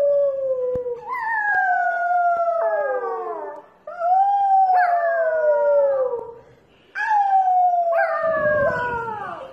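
A small dog howling: three long howls, each sliding down in pitch.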